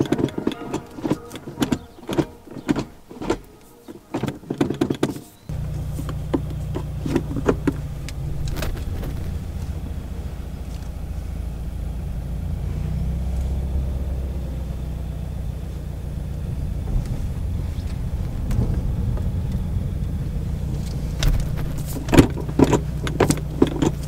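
A manual Subaru WRX gear lever is moved through its gates, making a run of irregular clunks and clicks. About five seconds in, the car's turbocharged flat-four engine comes on and idles steadily. Near the end there are more shifter clunks over the idle.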